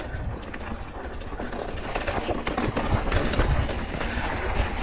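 Mountain bike rolling down a dirt and rock singletrack: tyre rumble with a dense, uneven clatter of knocks and rattles from the bike jolting over the bumps.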